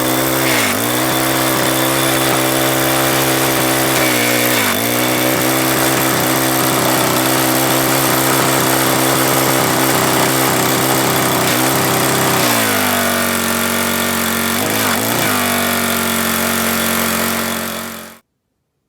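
Briggs & Stratton small gasoline engine on a Troy-Bilt pressure washer running steadily on a freshly replaced carburetor, having just started. Its speed dips briefly a few times and settles a little lower about twelve seconds in, then the sound cuts off abruptly near the end.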